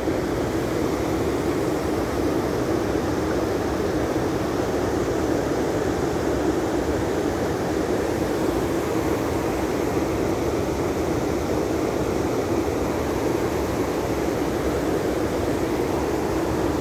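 Loud, steady rush of a muddy river pouring over a concrete weir, an even unbroken noise of falling and churning water.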